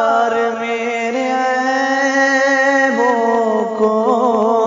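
A man singing an Urdu naat, holding one long drawn-out note with no instruments. The note shifts pitch a couple of times and wavers in an ornament near the end.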